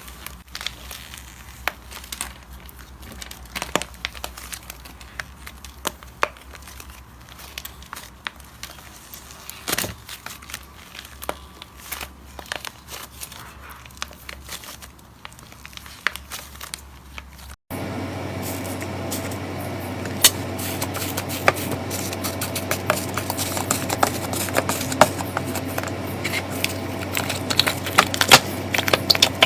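Slime being squeezed, stretched and poked, giving crackling, popping and crinkling clicks. About two-thirds of the way through there is a cut to a louder clip where the crackling is denser.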